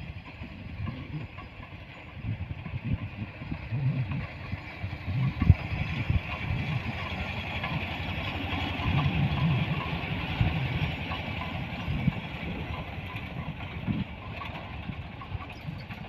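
Engine of a miniature toy-train locomotive running with an uneven low rumble, a mid-range mechanical noise growing louder about four seconds in.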